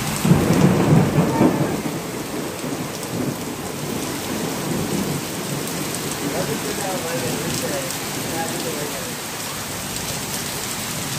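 Heavy rain pouring down on a street, with a low rumble of thunder in the first two seconds, then a steady downpour.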